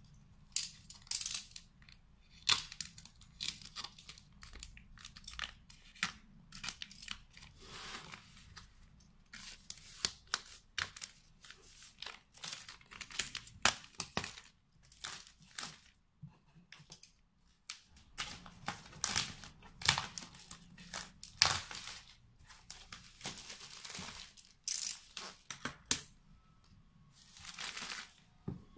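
Clear plastic wrap being slit and torn off a plywood mini chest of drawers: irregular short scratching, tearing and crinkling strokes.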